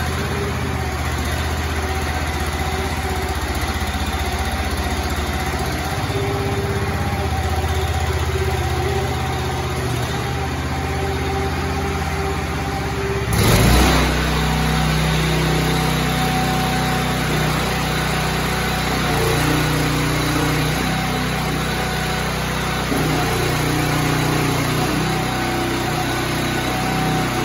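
A Soudure Molloy wood splitter's 13 hp Honda single-cylinder four-stroke engine runs steadily, driving the 22-gallon hydraulic pump. About halfway through there is a brief louder surge. After it the engine note changes and shifts in steps as the hydraulic control levers are worked and load the engine.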